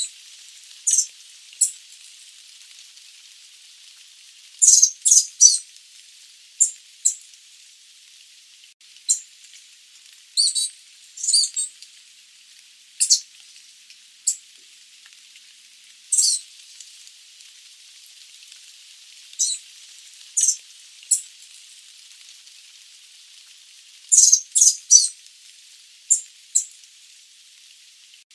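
Sooty babbler giving short, high-pitched calls at irregular intervals, some single and some in quick runs of two to four, over a steady hiss.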